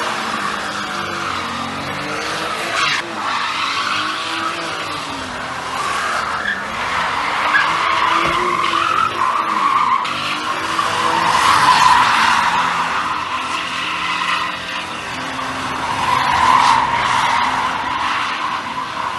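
Car drifting: the engine revs up and down again and again while the tyres skid in long slides. The skid noise swells twice in the second half.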